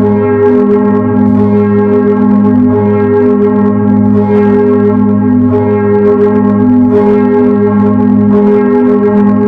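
A ring of ten church bells being rung freely, strike after strike several times a second, so that the tones overlap into one continuous, unbroken peal.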